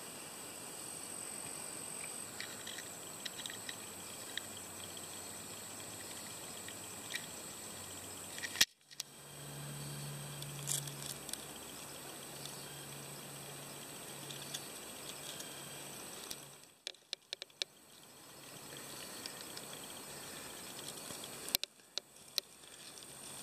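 Faint outdoor ambience from several short takes spliced together, with brief dropouts at the cuts: an even hiss with a thin, steady high whine and a few soft ticks. There is a low hum for several seconds near the middle.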